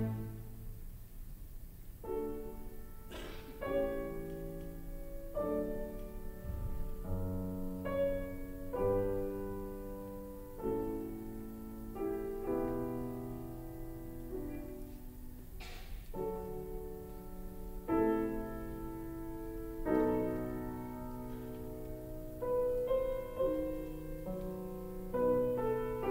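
Instrumental piano music: a quiet, slow passage of single notes and chords, each struck and left to fade.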